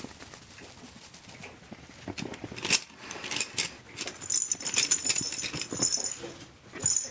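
Two Chihuahua puppies play-fighting: scrabbling and clicking on the pad, with a sharp clack a little before the middle. From about halfway come high, thin squeals that break off and start again.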